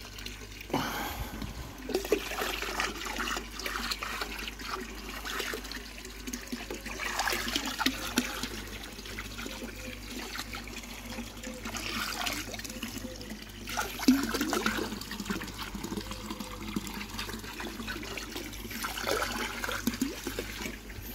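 Diluted fluke treatment poured in a steady stream from a plastic watering can, splashing into pond water.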